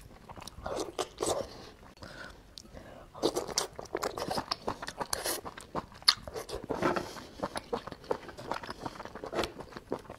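Mouth sounds of someone chewing and biting soft sea snail meat: a steady run of short wet clicks and crackles.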